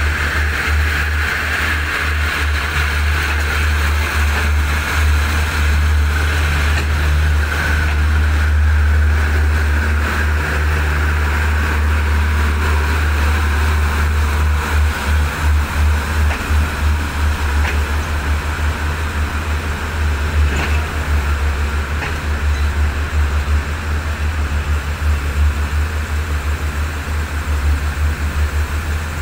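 State Railway of Thailand passenger coaches rolling past at close range: a steady, heavy rumble of train and wheel noise, with a few faint clicks in the second half.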